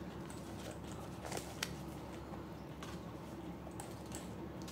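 Faint scattered clicks and taps of small plastic accessories (cables and clip-on microphones) being handled out of their packaging, over a steady low hum.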